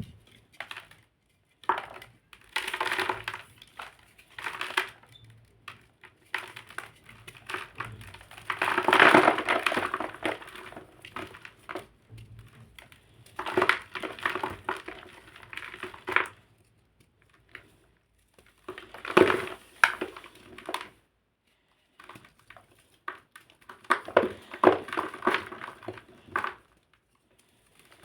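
Crunchy black blocks being crushed by hand, a crackling crunch in irregular bursts with short pauses between them.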